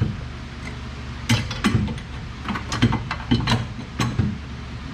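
Irregular metallic clicks and clanks of hand tools working on a car's rear strut assembly, over a steady low hum.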